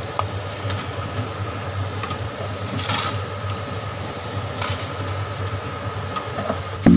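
Steady low machine hum, with a few light clicks and two short hissing bursts. Music with a steady beat starts at the very end.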